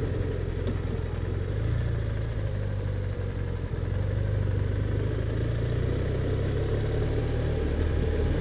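BMW R1200RT's flat-twin (boxer) engine running at low road speed, a steady low hum that grows a little louder about four seconds in.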